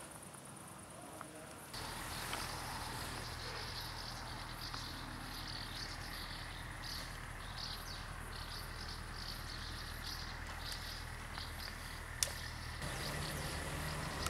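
Insects chirping in a steady run of short, high pulses, about two a second, over a low electrical hum. A single sharp click about twelve seconds in.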